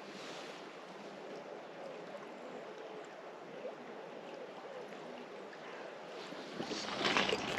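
River water running steadily, an even rushing noise. Near the end, louder splashing and scuffing of wading footsteps comes in.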